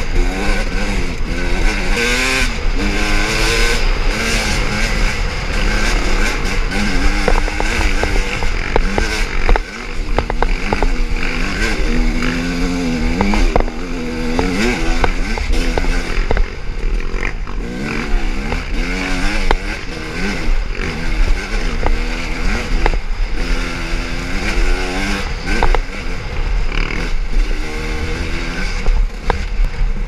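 Sherco SE-R 250 two-stroke enduro bike engine revving up and down as it is ridden along a rough dirt trail, with wind buffeting the helmet-camera microphone and scattered knocks from the trail.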